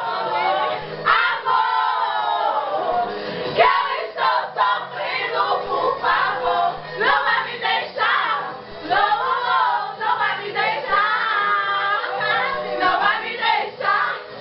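A group of voices singing together, several pitches overlapping at once.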